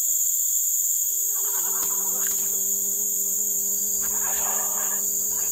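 High-pitched, unbroken drone of forest insects. About a second and a half in, a low steady hum joins it and runs nearly to the end, with faint rustling now and then.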